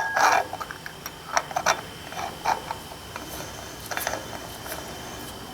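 Scattered metallic clicks and clinks of hand tools and hardware being worked on a tractor's front wheel hub while a nut is coaxed onto the spindle, irregularly spaced with no steady rhythm.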